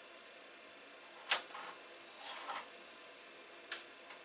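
A few sharp mechanical clicks and clacks from handling the computer: one loud click about a third of the way in, a short clatter of clacks around the middle, and a single click near the end.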